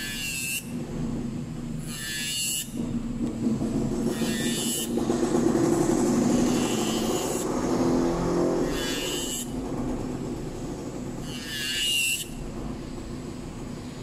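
Electric nail drill running with a white sanding bit, filing down an acrylic nail for removal: a steady motor whir, louder in the middle, with a short higher rasp about every two seconds.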